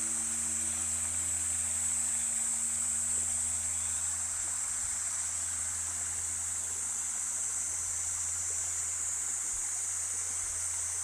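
The low hum of a large Buddhist temple bell fades out in the first second and a half, leaving a steady hiss with an even high band.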